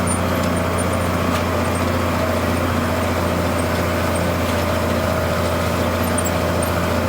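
Farm tractor engine running steadily while pulling a field cultivator: a constant low drone that holds an even pitch and loudness.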